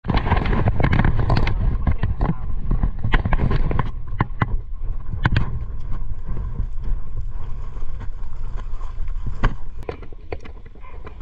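Hurried footsteps and gear knocking against a body-worn GoPro action camera, with a heavy low rumble of handling on the microphone that is strongest in the first four seconds and then eases.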